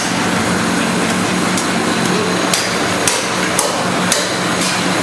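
Cymbal bronze being hand-hammered: a regular run of sharp metallic hammer strikes, about two a second, over a steady machine hum and workshop noise.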